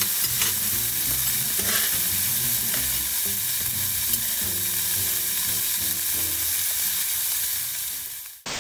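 Meat sizzling as it cooks, a steady crackling hiss that cuts off abruptly shortly before the end.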